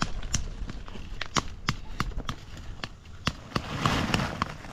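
A series of sharp, irregular clicks and knocks, with a short burst of rustling noise about four seconds in.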